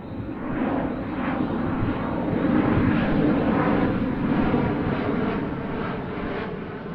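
Rushing, rumbling air sound effect for a flight through the sky. It builds over the first couple of seconds and eases off near the end.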